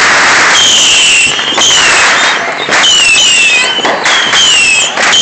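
Fireworks going off close by: a run of shrill whistling fireworks, each whistle dropping a little in pitch, over a steady crackling hiss, with sharp cracks every second or so.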